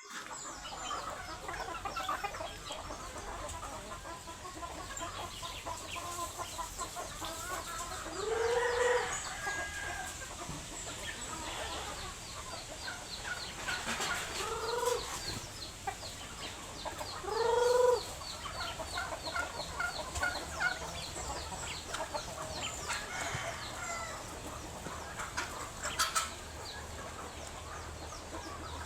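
A flock of chickens clucking and calling, with three louder drawn-out calls standing out about 8, 14 and 17 seconds in.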